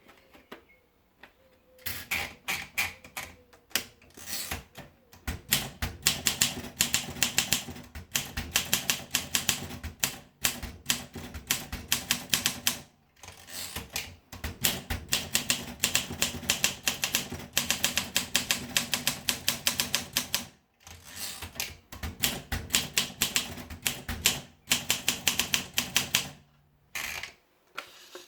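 Olympia SM4 Deluxe manual portable typewriter being typed on: quick runs of sharp keystroke clacks, broken now and then by short pauses.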